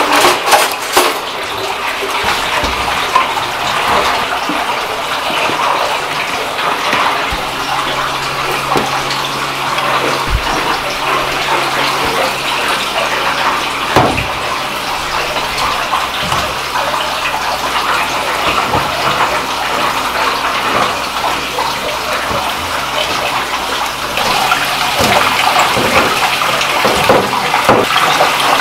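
Steady rush of running water in a kitchen, with wet squishing and knocks as gloved hands handle yeolmu kimchi and then toss noodles in red chilli sauce in a stainless steel bowl. A low steady hum comes in about seven seconds in and stops a few seconds before the end, and the mixing grows busier near the end.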